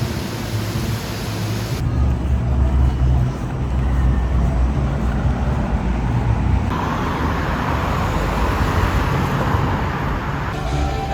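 Vehicle and road noise: a steady low rumble with hiss above it, changing abruptly a few times as one short clip cuts to the next.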